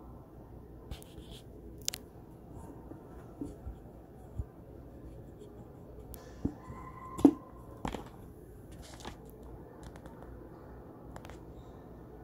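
Handling noise from a phone held up to a screen: scattered light clicks and scrapes over a low, steady room noise, with one sharp tap about seven seconds in.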